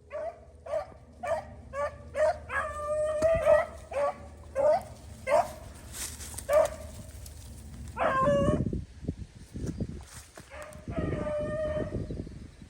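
Beagles baying on a rabbit they have just jumped: a string of short, high yelping barks broken by a few longer, drawn-out bays, the sound of hounds running a hot scent trail.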